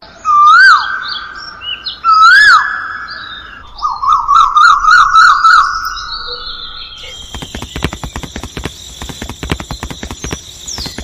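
Bird song: two loud whistled calls that rise and fall, then a quick trilling run of notes. About seven seconds in, it gives way to a steady high-pitched whine with rapid ticking.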